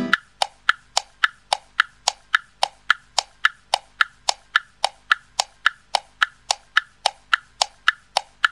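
Clock ticking: a sharp, even tick about three and a half times a second.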